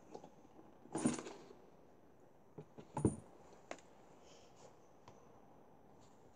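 Handling noise as a pair of Ross binoculars is lifted out of a leather carrying case and turned over: a soft knock about a second in, another about three seconds in, with a few light clicks and rubs between.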